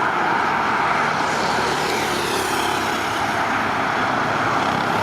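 Airbus A320-231's IAE V2500 turbofan engines running during landing, a steady rushing jet noise.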